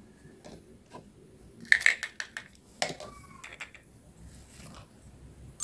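Plastic toy cookware clicking and knocking as it is handled: a cluster of sharp clacks about two seconds in, another knock a second later, then a few lighter taps.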